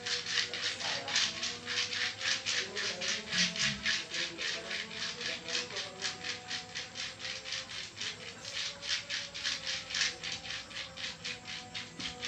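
Massage strokes rubbing on the skin in a quick, even rhythm, about four strokes a second.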